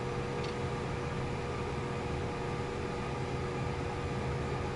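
Steady cockpit hum and whine of a Citation business jet on the ground with its engines idling, holding a few even tones over a low drone.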